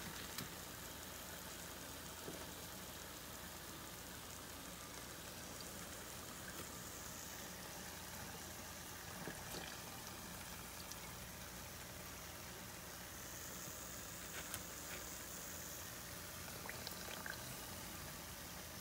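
Battered smelt deep-frying in a saucepan of hot oil: a faint, steady bubbling sizzle with a few small ticks scattered through it.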